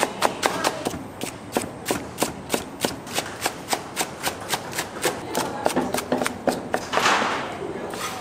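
Rhythmic knocking, about three to four sharp strokes a second, with a short burst of hissing noise about seven seconds in.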